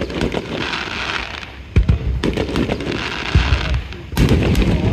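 Aerial fireworks shells bursting: several sharp bangs, the loudest about two seconds in and twice more near the end, with crackling between them.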